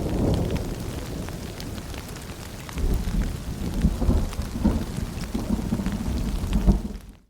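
Rain falling with rolling rumbles of thunder: the low rumble fades over the first couple of seconds and swells again about three seconds in, with the patter of drops on top. The sound breaks off to silence for a moment near the end.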